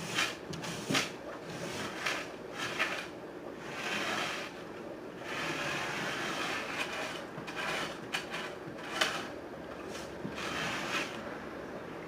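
Irregular knocks, clicks and scraping as aquarium gravel and rocks are shifted by hand to level the substrate, with a longer stretch of scraping in the middle.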